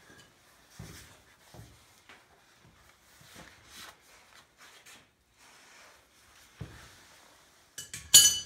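Scattered light knocks, clicks and rubbing from hands and tools working a copper pipe joint being soldered, with one loud, sharp clatter near the end.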